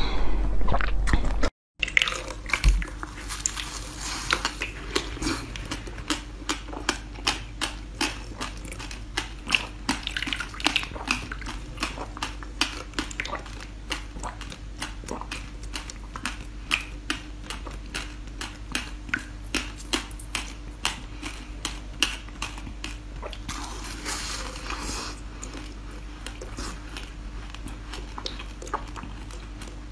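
Close-miked mouth sounds of a person eating soft jelly: wet bites, sucking and smacking, heard as a dense, irregular run of sticky clicks.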